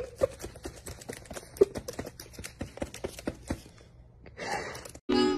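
A run of rapid, irregular sharp clicks and taps, then a short breathy hiss about four seconds in; music starts right at the end.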